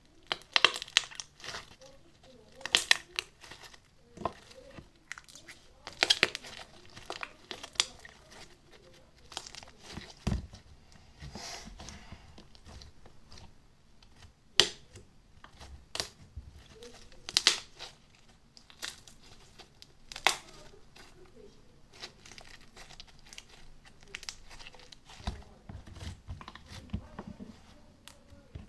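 Slime being squeezed and worked by hand, giving irregular sticky crackles and pops in clusters, with pauses between them.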